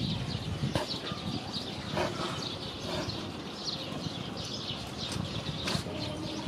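Small birds chirping over and over in short, high calls, over a steady low background rumble, with a couple of sharp clicks about a second in and near the end.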